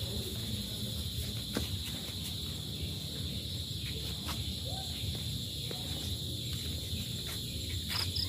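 Insects trilling steadily and high-pitched, with a short run of rapid chirps, about ten a second, near the end, over a low background rumble.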